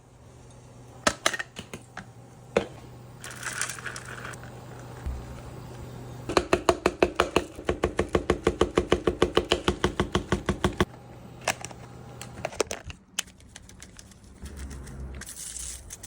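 A fast, even run of sharp knocks, about seven a second for some four seconds, with a few single knocks before and after it and short bursts of hiss.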